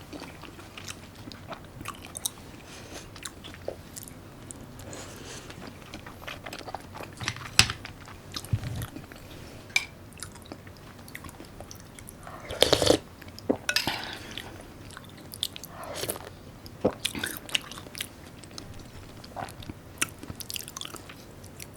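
Close-miked chewing and biting of raw salmon and side dishes: wet mouth clicks and smacks, with occasional crunchier bites and a louder burst of mouth noise about thirteen seconds in.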